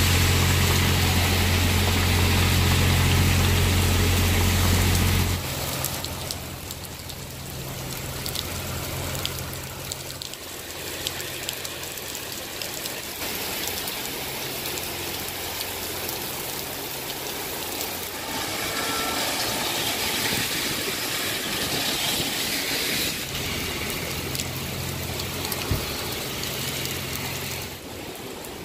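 Heavy rain falling and splashing on a city street, a steady hiss throughout. For the first five seconds a loud, steady low engine drone sits under the rain, from the generator of a mobile light tower; after that the drone drops away and only a fainter engine hum from traffic comes and goes under the rain.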